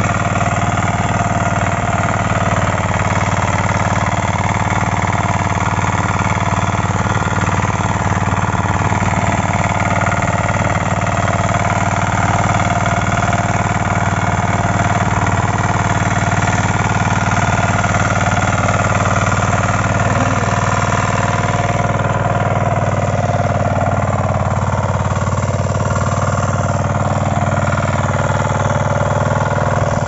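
KisanKraft 9 HP single-cylinder diesel power weeder running steadily under load while ploughing, with a fast, even diesel knock.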